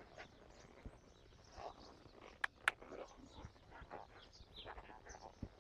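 Faint sounds of a horse walking under a rider, with scattered faint bird chirps and two sharp clicks about two and a half seconds in.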